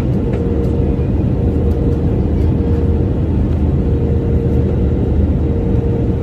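A car driving along the road: a steady low rumble of engine and tyres, with a thin steady hum above it.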